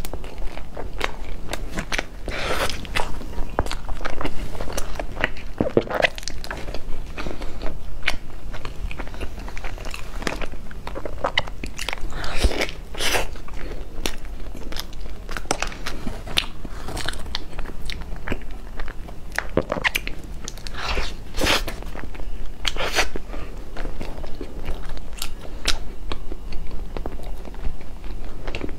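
A person biting into and chewing crusty baked pastries close to a clip-on microphone: irregular sharp crunches with chewing in between.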